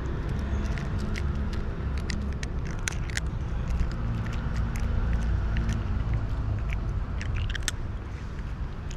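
A cat crunching dry kibble: irregular sharp crunches and clicks over a steady low rumble.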